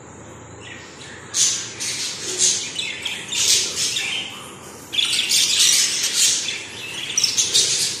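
Young Texas Clearbody budgerigars chattering and squawking in rapid, high-pitched calls. The calls come in two bouts, the first starting a little over a second in and the second about five seconds in.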